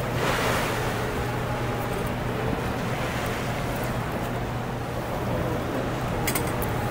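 Steady rushing of water pouring through Conowingo Dam's open spillway gates, with a low steady hum underneath.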